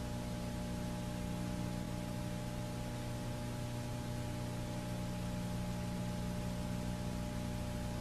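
Steady hiss with a low electrical hum: the noise of a blank sound track on an old tape transfer, with no sound recorded on it.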